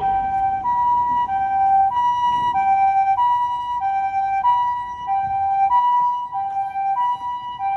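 Japanese ambulance two-tone "pee-po" siren sounding steadily, a high and a low tone alternating about every half second.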